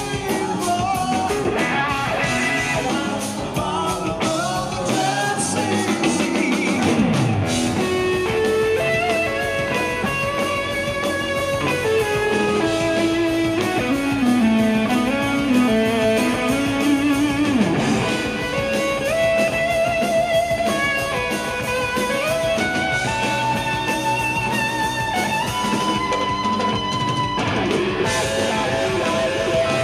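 Live rock band playing: electric guitar, bass guitar and drum kit, with a lead line of held, wavering notes over the rhythm.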